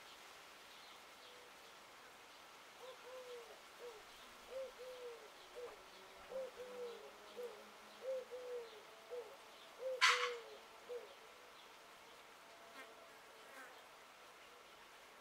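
A dove cooing a three-note phrase, two longer notes and a short one, five times over. A sharp click comes about ten seconds in.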